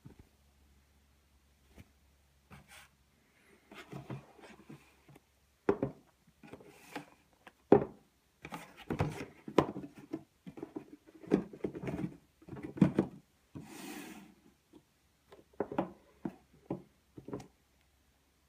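Unboxing football boots by hand: a mesh drawstring bag and a cardboard shoebox rustle and rub, with irregular sharp knocks on a wooden tabletop. The loudest knocks come about six and eight seconds in.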